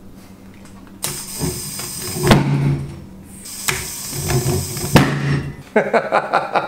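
A homemade plasma-gun Halloween prop firing four times, a bit over a second apart. Each shot is a sudden blast of hiss with a low hum under it, dying away over about a second.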